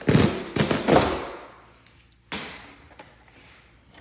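Cardboard packaging being handled: sliding and rustling sounds through the first second and a half, then a single sharp knock a little after two seconds in, followed by a few faint taps.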